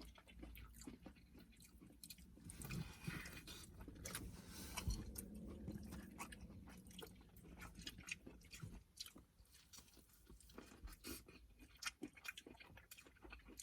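Quiet chewing and mouth sounds of someone eating buttery seafood, with many small scattered clicks.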